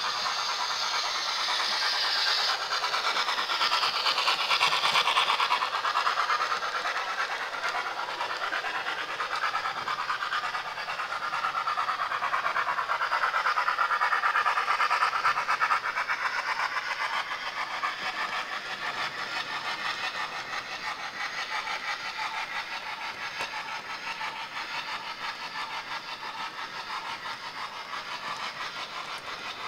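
Locomotive engine sound from a Hornby model train's DCC sound decoder, played through its small onboard speaker so it is thin with almost no bass. It swells twice in the first half and then slowly fades.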